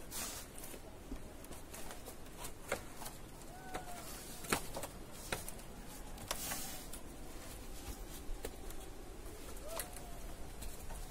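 Scattered clicks and knocks of hikers climbing down a rope-lashed wooden and bamboo ladder between rocks: shoes landing on the rungs, hands gripping the poles, and clothing brushing against the rock. A few brief rising-and-falling squeaks come through now and then.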